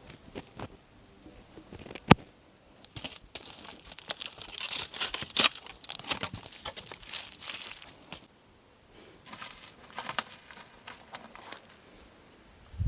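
Crinkling and rustling handling noises with a sharp click about two seconds in, followed near the end by a small bird chirping repeatedly in short, high, falling notes.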